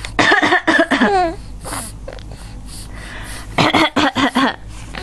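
A woman coughing in two bursts of several quick coughs, the first just after the start and the second about three and a half seconds in.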